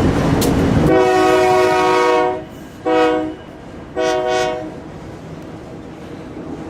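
Freight train rumbling and clattering, cut off abruptly about a second in; then a locomotive's air horn sounds one long blast followed by two short ones.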